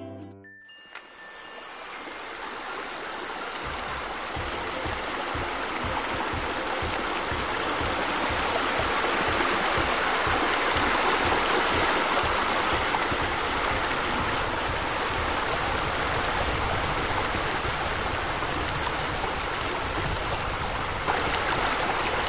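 Steady rush of falling, splashing water, like a pool waterfall and fountain jets. It fades in over the first few seconds, with a low rumble joining it, then holds steady.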